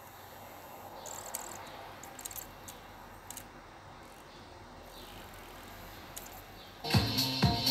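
Faint hiss and a few light clicks from a car CD head unit as it reads the disc's contents and cues up track one. Music starts loud from the unit about seven seconds in.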